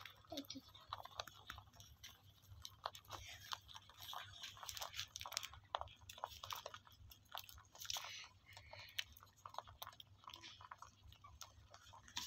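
Several domestic rabbits chewing cut grass close up: a quick, irregular run of small crunching clicks.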